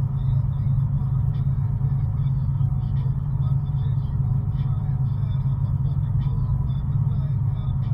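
Steady low rumble of a truck's engine and tyres heard inside the cab while cruising at highway speed.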